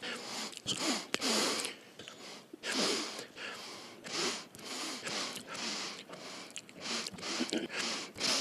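A man sniffing sharply through his nose about a dozen times in quick succession, each sniff short and breathy with sudden starts and stops, as though cut together one after another.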